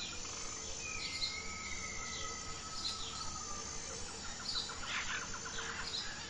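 Forest ambience of birds chirping and calling over a faint steady high hum: short repeated chirps, a long drawn-out whistled note in the first few seconds, and a quick trill about five seconds in.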